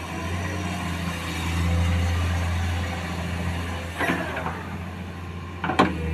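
Komatsu PC210 hydraulic excavator's diesel engine running under working load, a steady low drone that swells for about a second as the machine swings its arm. About four seconds in there is a short clatter of rock and steel, and near the end a sharper, louder knock.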